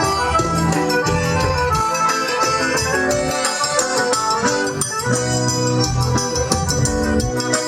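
Live forró pé de serra music: an accordion playing an instrumental passage over a steady beat of bass drum and percussion.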